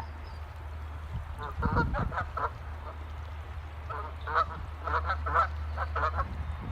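Geese honking: a run of short calls, then a longer series a couple of seconds later, over a steady low rumble.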